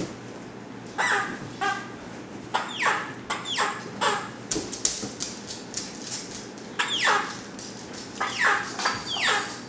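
Five-and-a-half-week-old puppies yelping and squealing in rough play: a couple of short yaps about a second in, then several high squeals that fall sharply in pitch.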